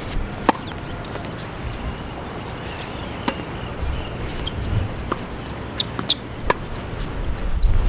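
Tennis ball struck by rackets and bouncing on a hard court during a rally. A sharp pop of the serve comes about half a second in, then single pops every second or two, and a quick run of several close together about six seconds in.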